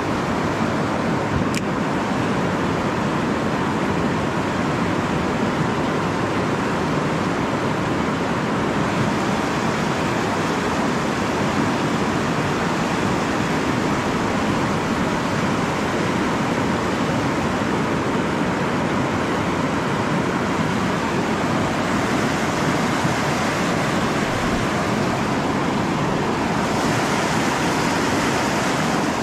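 Steady rush of river water pouring over a low concrete weir, an unbroken noise that turns a little hissier near the end.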